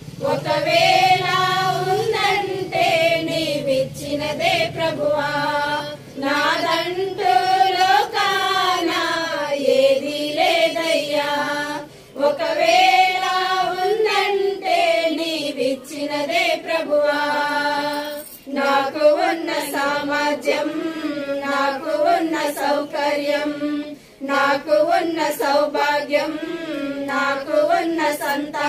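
A small group of women singing a Telugu Christian hymn together, in phrases of a few seconds with short breaks for breath between them.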